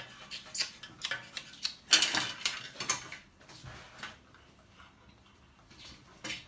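Pencils tapping and scratching on paper laid on a glass tabletop: a quick run of short clicks and taps, loudest about two seconds in, thinning out to fainter scratching after about four seconds.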